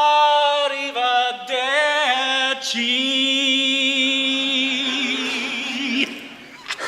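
Barbershop quartet singing a cappella in close harmony: a few quick chord changes, then one long held chord that cuts off about six seconds in.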